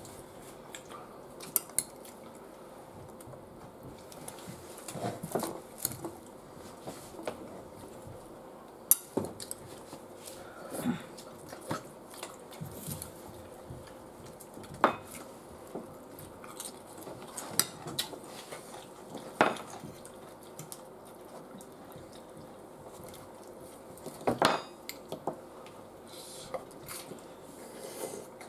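Forks and spoons clinking and scraping against a baking tray and a serving bowl as food is dished up, in scattered sharp clinks at irregular intervals.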